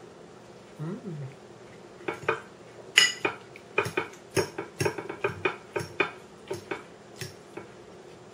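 A fork clinking and scraping against a plate while pasta is eaten: an irregular run of sharp clinks from about two seconds in to near the end.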